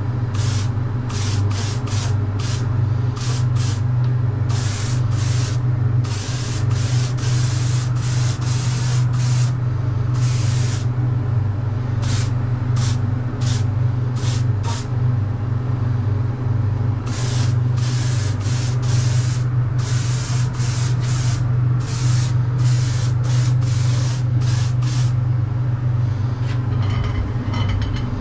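Gravity-feed spray gun spraying paint in many short trigger pulls, each a brief hiss of air and paint, stopping a few seconds before the end. A steady low hum runs underneath throughout.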